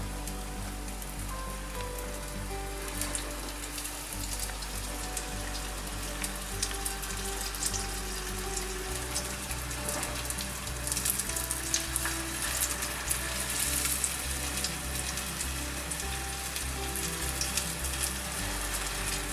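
Battered zucchini pieces deep-frying in hot oil, sizzling with a steady dense crackle that grows busier about halfway through. Faint background music plays underneath.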